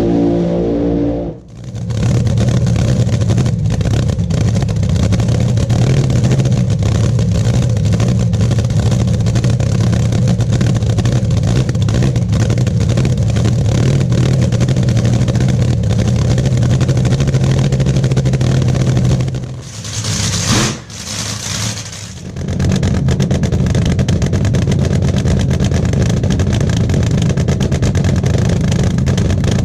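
Nitromethane-fuelled dragster engine running loud and steady at its cackle. It breaks off sharply about a second and a half in and comes straight back, then dips briefly around twenty seconds in with a short hiss before running steadily again.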